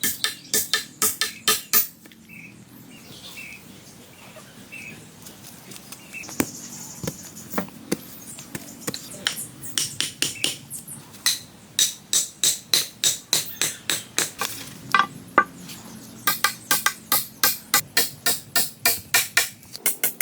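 Rapid hammering, about three to four strikes a second, in a run over the first two seconds and another over the last few seconds, with quieter scattered taps between.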